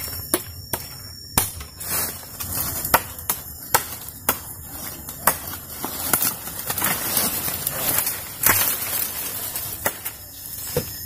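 A blade chopping at a wooden pole and cut branches: sharp, irregular knocks about once a second, with rustling brush. A steady high insect drone runs underneath.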